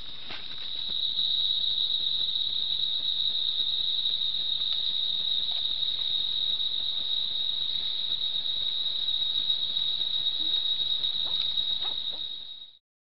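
Rainforest insects calling in one steady, unbroken high-pitched drone that grows louder about a second in and cuts off suddenly near the end, with a few faint ticks near the end.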